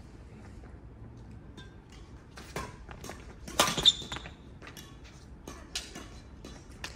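Badminton rally on a wooden court: sharp racket hits on the shuttlecock, a few in all, the loudest a little past halfway, with players' footsteps and shoe scuffs on the floor between them.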